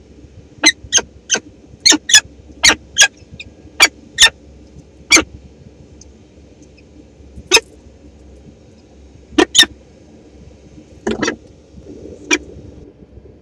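Peregrine falcon at the nest giving a series of short, sharp chip calls, about a dozen in irregular clusters. About 11 seconds in comes a brief scuffling rustle as the bird shifts on the gravel, then one more chip.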